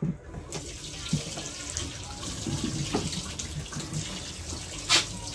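Water from a tap starts running about half a second in and splashes into a sink over peeled cassava roots as they are rinsed by hand. A few light knocks are heard, and a sharp knock comes near the end.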